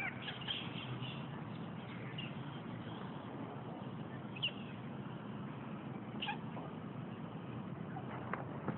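Several short, high-pitched animal calls, a second or two apart, over a steady background hiss.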